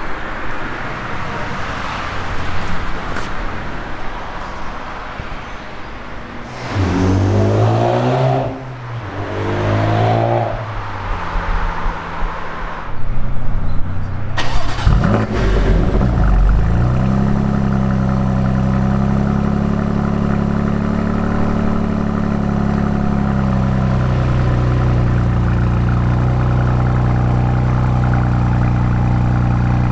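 BMW M2 CS's S55 twin-turbo straight-six starting about halfway through with a loud flare. It then settles into a steady idle, which drops a little about two-thirds of the way in. Before that there is general traffic noise and two short rising engine sweeps.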